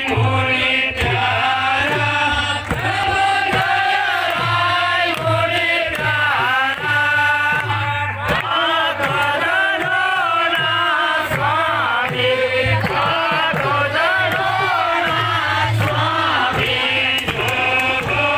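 Devotional aarti hymn: voices chanting a melody over a steady, regular beat.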